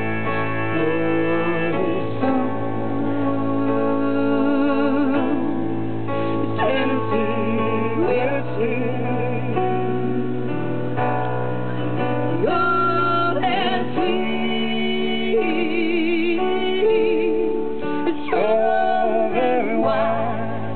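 Live acoustic guitar music: a steel-string acoustic guitar played with a wavering lead melody over it and a steady low bass note underneath.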